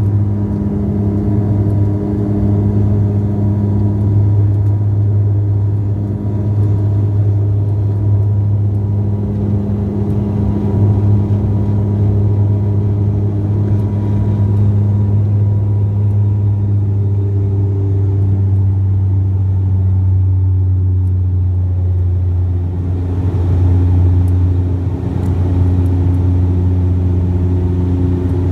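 A vehicle engine running steadily, with the pitch of its hum shifting slightly a few times.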